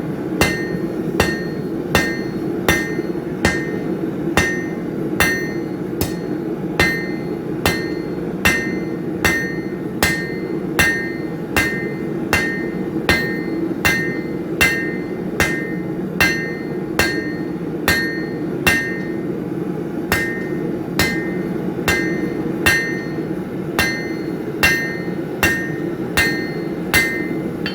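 Blacksmith's hammer striking hot steel on an anvil at a steady pace, about one and a half blows a second, each blow with a short metallic ring, while drawing a point on square stock. A steady low hum runs underneath.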